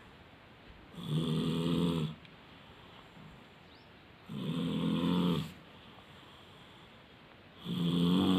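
A sleeping child snoring loudly, three snores about three seconds apart, each lasting about a second.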